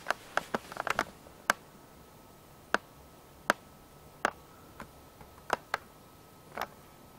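About a dozen short, sharp clicks and ticks at irregular intervals, a few close together in the first second, over a faint steady high-pitched tone.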